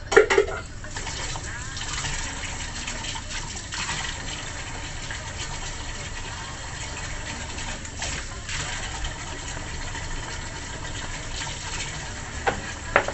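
Tap water running in a steady rush while seafood is rinsed clean. A sharp clatter at the very start and a couple of short knocks near the end.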